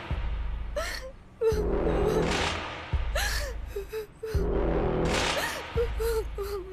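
A girl crying: gasping, sobbing breaths in short repeated bursts, over low background music.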